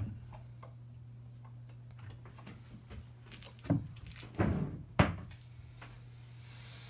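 A few knocks and thumps from a cat moving about on a carpeted cat tree, the loudest three falling between about three and a half and five seconds in, with small clicks between them. A steady low hum runs underneath.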